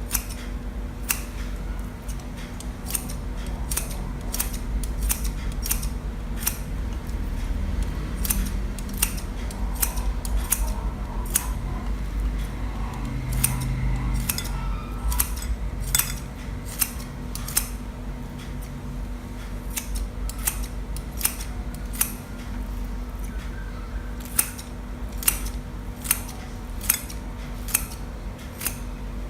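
Raw tilapia fillet being cut into small pieces, a sharp click with each cut, roughly one to two cuts a second at an uneven pace.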